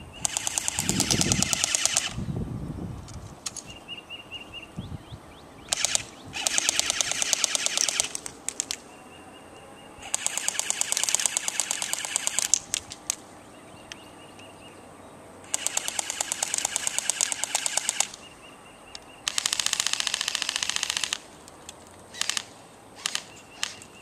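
Airsoft electric guns (AEGs) firing five long full-auto bursts, each one to two and a half seconds of rapid clicking, with a few scattered single shots near the end.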